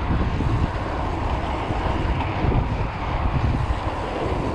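Wind buffeting the microphone, with tyre roar on asphalt, as a mountain bike rolls fast along a paved road.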